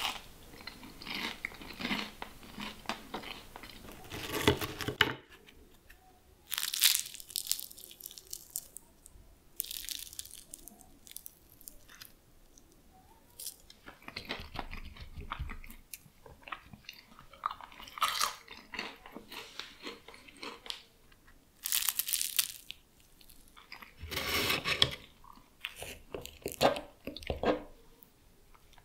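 Biting into and chewing crisp, flaky baked puff-pastry cheese twists: crackly crunching, with several loud bites a few seconds apart and softer chewing between them.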